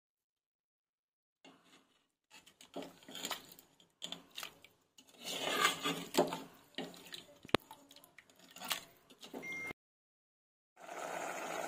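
Steel ladle stirring thick vegetable kurma in an aluminium pressure cooker: irregular wet scraping and clinking against the pot, with one sharp clack near the middle. A steady hiss starts about a second before the end.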